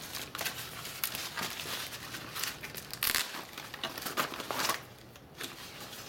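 Plastic packaging and soft white wrapping crinkling and rustling as a plastic headlight bezel is pulled out of it, with a louder burst of crinkling about three seconds in.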